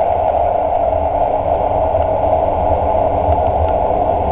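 Train running at speed through the undersea Seikan Tunnel, heard from inside the carriage. The running noise is steady and even, with a low rumble under it and a thin, steady high whine above.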